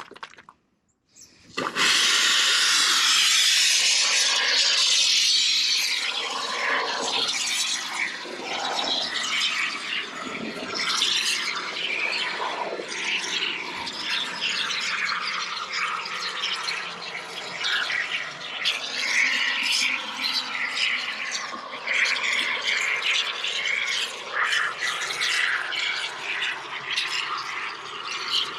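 Aerosol can of Evercoat expanding sealant foam being sprayed: a loud steady hiss starting about two seconds in, turning to an uneven, crackling hiss after a few seconds as the foam comes out.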